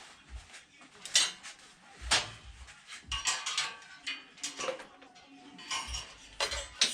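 Steel welding-table plates and parts being handled and fitted together, clinking and knocking in short separate strikes, the loudest about a second in.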